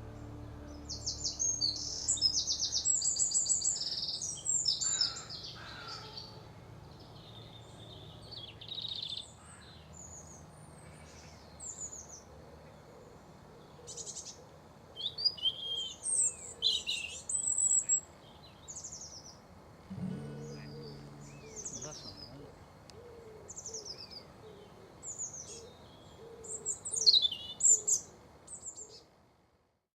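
Small birds calling and singing in short bursts of high chirps and rapid trills, busiest in the first few seconds and again near the end.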